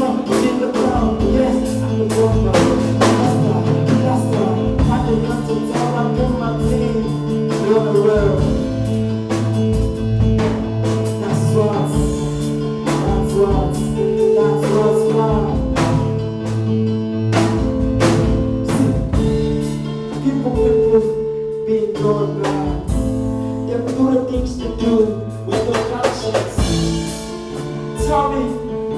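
Live band playing during a sound check: drum kit keeping a steady beat under bass and guitar, with a voice singing over it.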